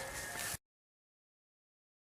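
Faint room hiss for about half a second, then cut off sharply to dead silence, as at an edit in the recording.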